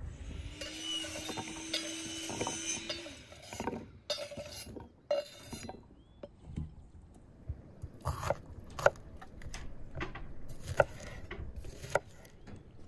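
Bell peppers and a kitchen knife handled in enamel bowls on a wooden table: a string of separate sharp knocks and clinks. A steady hum with a hiss runs for about the first three seconds.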